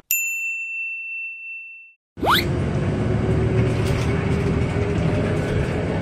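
A single bright bell-like ding sound effect rings out and fades away over about two seconds, followed by a moment of silence. Then comes a quick rising sweep, and the steady rumble of a moving city bus's cabin resumes with a faint steady hum.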